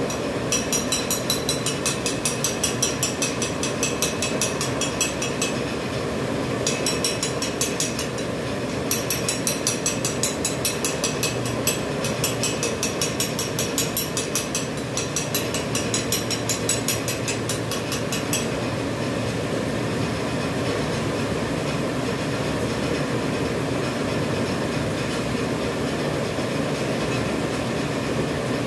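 Disposable dental mask production machine running, with a rapid, even mechanical clicking over a steady hum. The clicking breaks off briefly twice and stops about two-thirds of the way through, leaving only the steady machine hum.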